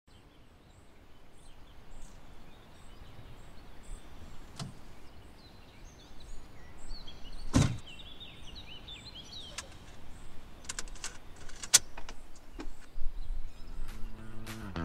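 Quiet van-cab background with faint bird chirps, a knock about halfway through and a run of small clicks as things are handled. Near the end the car radio is switched on and music starts.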